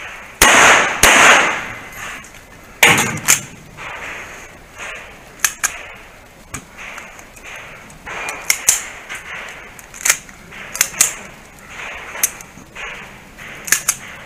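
Handgun fired three times in the first three seconds, each shot a loud crack with a short ringing tail, the first two close together. Then the pistol has a failure to feed, the round caught on the lip of the chamber. The rest holds a scatter of quieter sharp clicks and cracks.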